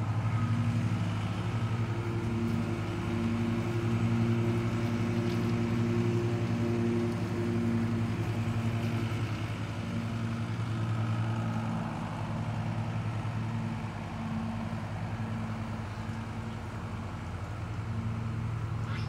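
A motor engine running steadily at a constant low pitch, a continuous drone with a slight pulse and no revving.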